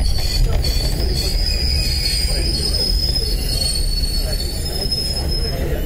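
Steel wheels of a KiHa 30/KiHa 37 diesel railcar pair squealing as the train rolls slowly to a stop, heard from inside the car. There are long high-pitched squeals over a steady low rumble of wheels and running gear.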